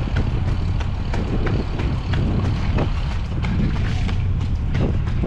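Running footsteps striking wet pavement at a steady race-pace cadence, about three a second, over a constant low rumble of wind on the microphone.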